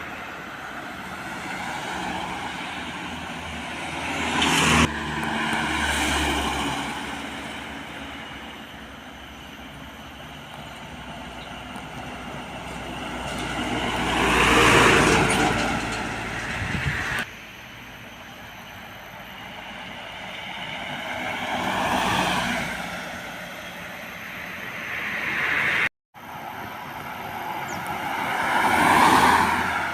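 Heavy trucks passing by one after another on a road. Each pass-by of engine and tyre noise swells to a peak and fades, with the sound cutting off abruptly a few times between passes.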